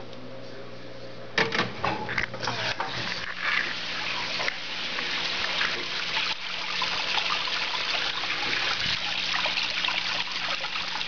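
Water spraying from a Loc-Line return nozzle onto the bare bottom of an empty aquarium, pushed by a Mag-Drive 9.5 return pump. A few splashes about a second and a half in build into a steady hiss of spray and splashing, over a steady low hum.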